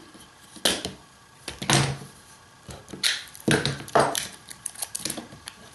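Short knocks and rasping handling noises in about six separate bursts as a wooden chair rail, spring clamps and tape are worked on a workbench.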